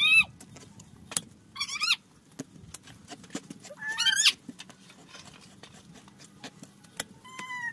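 A kitchen knife chopping raw meat on a plastic cutting board: a string of sharp, irregular knocks. An animal calls in short high cries four times over it, loudest near the start and around the middle.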